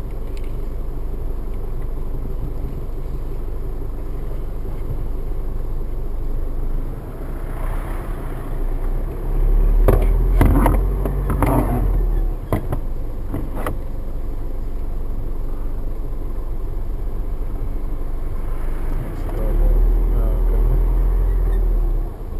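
Car driving slowly on a paved road, heard from inside the cabin: a steady low engine and tyre rumble. A few sharp knocks come about ten to fourteen seconds in, and the rumble swells heavier twice.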